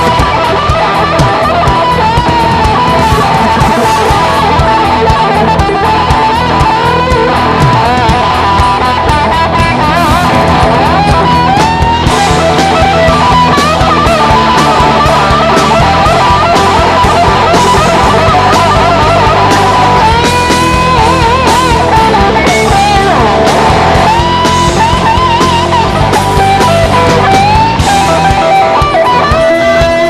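Live rock band playing an instrumental passage: electric guitar lead with bent, wavering sustained notes over bass, rhythm guitar and drums.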